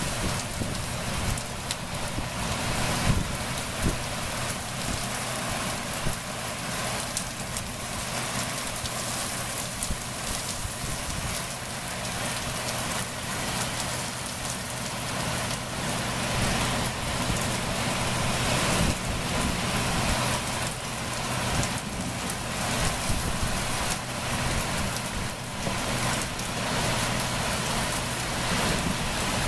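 Steady rain falling on surfaces during a thunderstorm, an even hiss with small irregular swells in level.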